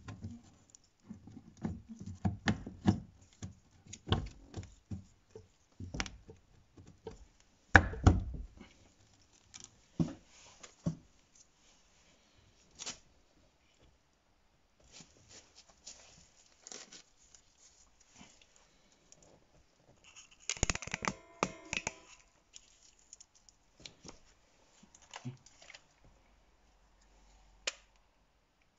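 Scattered clicks and knocks of a new plastic electric window motor being handled and fitted onto the window regulator inside a VW Passat B6 door, with one heavy thump about eight seconds in and a short rattling burst about two-thirds of the way through.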